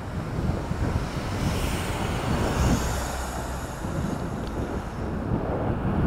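Strong headwind buffeting the microphone of a camera on a moving bicycle: a dense, uneven low rumble. A higher hiss swells about one and a half seconds in and fades out by about four seconds.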